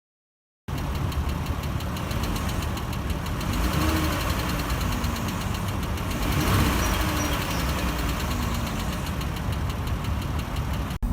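Chrysler 3.6L Pentastar V6 idling steadily with a rapid, even ticking from the valvetrain, typical of failing roller rocker arms.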